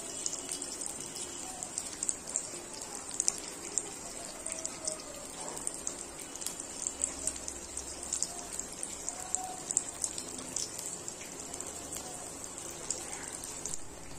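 Eggplant slices shallow-frying in hot oil in a black wok: a steady sizzle with frequent small crackling pops.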